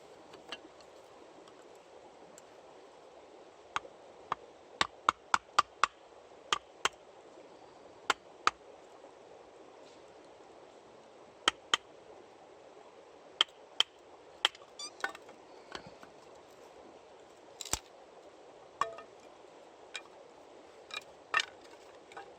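Sharp wooden knocks and cracks of firewood being worked for a campfire: a quick run of about six knocks some four to six seconds in, then scattered single ones, over a faint steady hiss.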